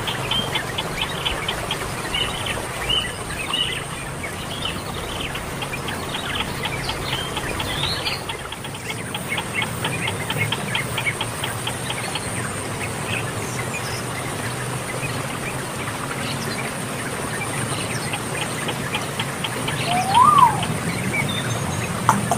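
Small birds chirping outdoors: many short high chirps, a fast even run of them at about five a second in the middle, over a steady high-pitched whine. Near the end one lower, louder call rises and falls once.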